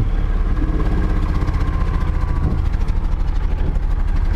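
Boat engine running steadily under way, a constant low rumble with fast, even pulses.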